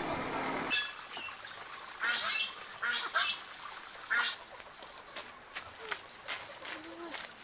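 Poultry calling in several short bursts, over a steady high-pitched insect whine.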